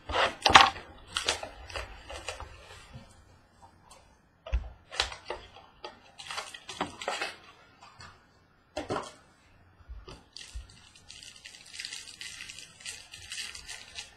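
Trading cards and their packaging handled on a tabletop: scattered taps, clicks and a few soft thumps as items are set down, then a steady crinkling rustle for the last few seconds as the next pack's wrapper is worked open.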